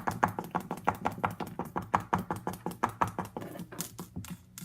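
Felt-tip marker tapped and scrubbed against a hard surface in quick colouring strokes: rapid, uneven tapping, several knocks a second.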